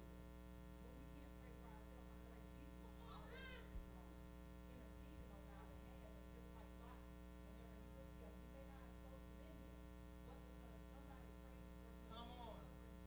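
Near silence filled by a steady electrical mains hum, with faint, indistinct voices in the room; one voice rises briefly about three seconds in and another near the end.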